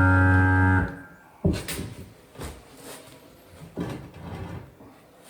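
Guitar music holds a chord and cuts off about a second in. Then comes a sharp knock, followed by a few short, faint scraping strokes of a pencil marking the stone tile.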